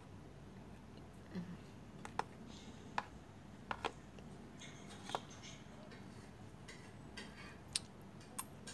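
A metal spoon clicking against a plastic food container as pasta is scooped up and eaten: several sharp, irregularly spaced clicks.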